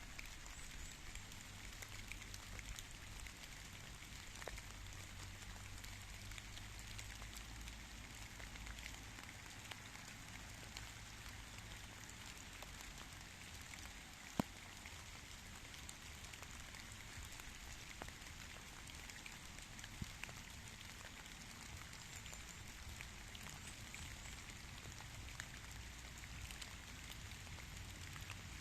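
Steady rain falling, a continuous hiss of many small drop ticks, with one sharper, louder drop about halfway through.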